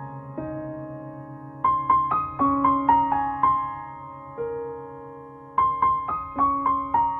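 Soft background piano music: a short phrase of notes stepping down in pitch, repeated about every four seconds, each note struck and left to fade.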